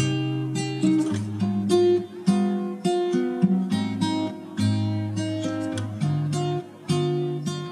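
Background music: plucked acoustic guitar playing a steady run of notes.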